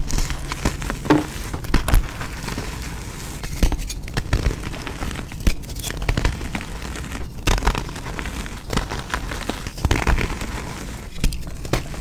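Bare hands crushing and crumbling gym chalk: a run of irregular crunches and crackles with frequent sharper snaps.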